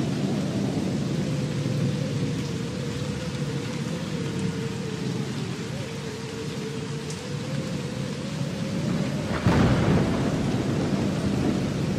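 Backing soundtrack of a steady rushing noise and low rumble under a held drone note, with a sudden loud burst about nine and a half seconds in.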